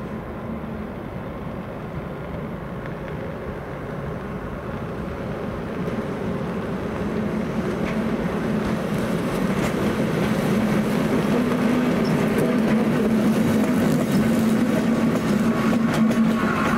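A pair of Intercity-liveried electric locomotives, class 90 90001 and class 86 86101, running light and approaching. They pass close by with a steady electric hum and running noise that grows louder, and the wheels click over rail joints near the end.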